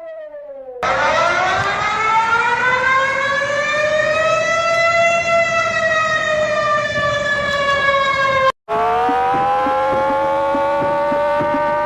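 Warning sirens, with one recording cut into the next. A quieter siren falls away in the first second, then a louder one cuts in with a slow wail that rises for about four seconds and falls for three. It stops abruptly, and after a brief dropout another siren winds up and holds a steady note.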